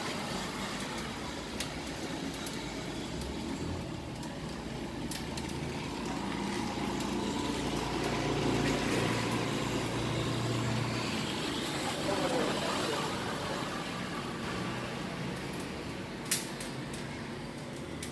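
Steady street background: road traffic with a low engine hum swelling in the middle and indistinct voices. A sharp click sounds early on and a louder one near the end.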